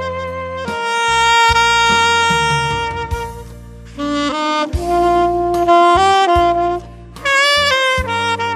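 Instrumental music: a lead instrument plays a slow melody of long held notes with vibrato over a backing track with bass.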